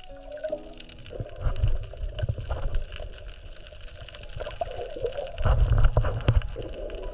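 Water sloshing and gurgling around an action camera's microphone, in irregular low rumbling surges with scattered clicks.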